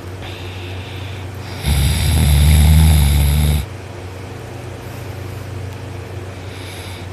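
A person snoring loudly in sleep, lying on their back: one long, rough snore of about two seconds near the middle, with a fainter breath a second before it, over a steady low hum.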